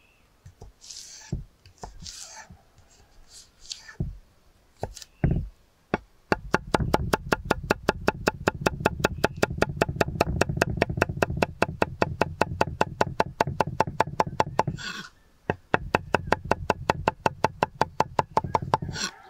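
Chef's knife dicing carrot on a wooden cutting board: a few separate cuts at first, then a fast, even run of knocks, about five a second, with one short break before it resumes.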